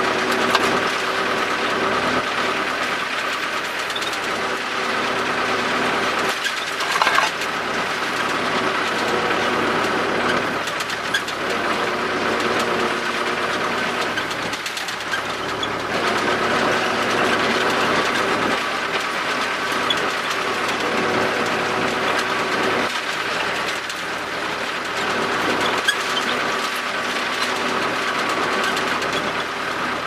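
MTZ-82 tractor's four-cylinder diesel engine running steadily while driving along a rough track, heard from inside the cab, with knocks and rattles from the cab.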